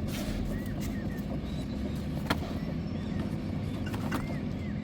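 A steady low mechanical drone, like a small engine running, with faint chirps and a sharp click a little over two seconds in.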